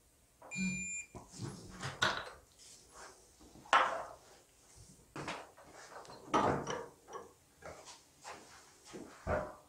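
A digital torque wrench gives a short beep about half a second in as it reaches its set torque on the bolt at the bottom of a motorcycle front fork leg. Irregular metal clicks, knocks and clunks follow as the fork leg is handled and taken out of a bench vise, the loudest a little under 4 seconds in and a little over 6 seconds in.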